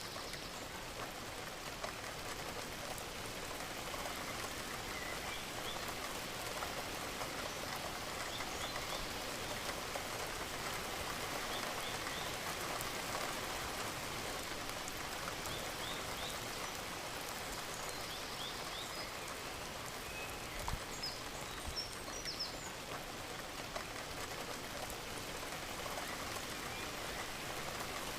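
Steady rain falling, an even hiss of drops. A few faint, short, high chirps come through it now and then.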